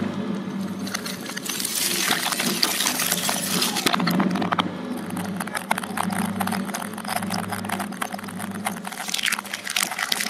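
Twin-shaft shredder running with a steady motor hum while its cutters crunch through a foam food container, then crush ping-pong balls with many sharp plastic cracks.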